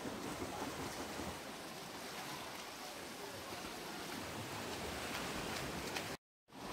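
Steady splashing and churning of water from swimmers in a pool, with no pitched sound in it; it cuts out for a moment near the end.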